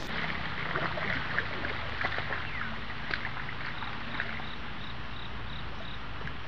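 Water sloshing and splashing as a person wades waist-deep through a river, with scattered small splashes in the first half.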